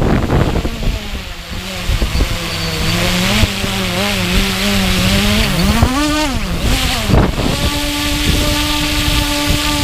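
Hubsan X4 Pro quadcopter's motors and propellers whining out of control after a crash landing, unable to be shut off. The whine wavers in pitch, rises and falls sharply about six seconds in, cuts out briefly, then settles into a steady tone near the end. Wind noise on the microphone at the start.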